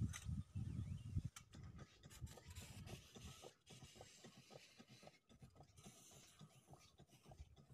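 Faint rubbing and scraping handling noise with low rumbling thumps on the microphone, loudest in the first second and a half and fainter after.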